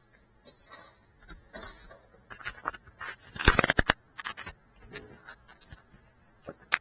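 Handling noise from hands picking up a small FPV drone right at its onboard camera's microphone: scattered scrapes and scratches, a quick rattle of loud clicks about halfway through, and one sharp click near the end.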